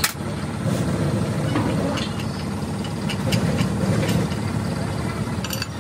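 An engine running steadily close by, a constant low rumble, with a few light metallic clinks as steel clutch parts and a spanner are handled.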